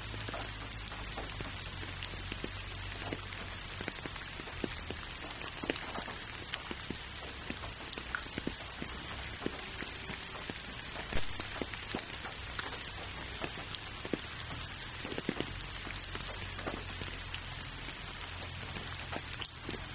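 Steady rain falling: an even hiss with many separate close drop impacts ticking through it, over a low steady rumble.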